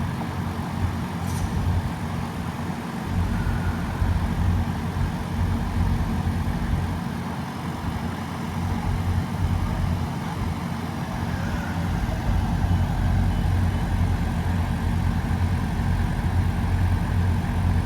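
A heavy engine running with a steady low rumble that grows a little louder in the last third.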